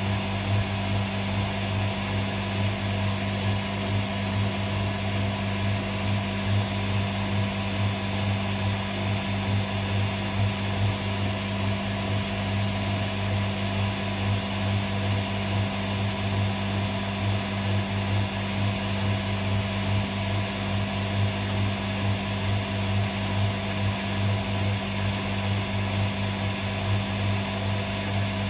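Hotpoint WMA37 Aquarius washing machine running with a steady low hum, its loudness pulsing slightly.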